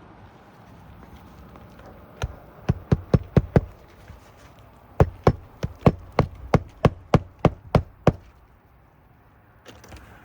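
Hammer driving roofing nails through an asphalt shingle: two quick runs of sharp blows, about six and then about ten, each about three to four strikes a second.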